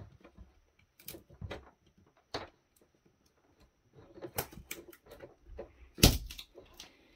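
Scattered clicks, taps and light scrapes of hands working the thin sheet-metal shield off a laptop power supply's circuit board, with one louder knock about six seconds in.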